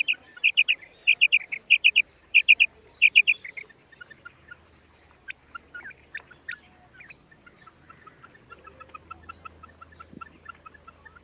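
Common quail calling: loud phrases of three quick, high notes repeated about every half second for the first three seconds or so, then softer, quicker short notes, about four a second, near the end.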